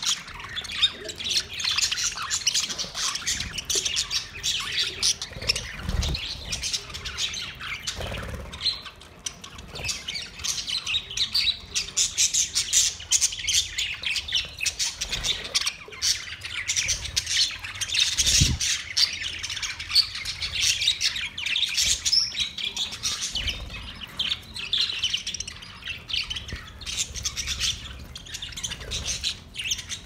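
A flock of budgerigars chattering and squawking, a dense stream of quick calls with no pause. A few low thumps come through now and then.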